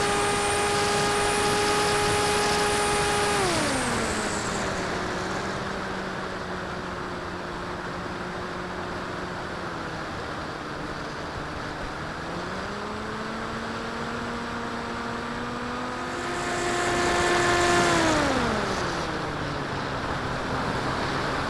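Electric brushless motor and propeller of an RC foam plane, a 3530 1400 kV motor, whining at high throttle in the climb after launch, with wind hiss over the onboard camera. About three and a half seconds in the pitch drops steeply as the throttle is cut back; it rises a little near the middle, then climbs to a louder, higher whine again and drops once more toward the end.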